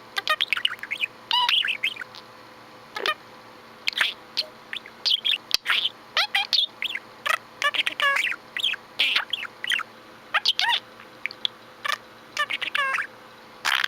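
Budgerigar chattering and warbling: runs of quick chirps and twittering pitch glides with short pauses between them.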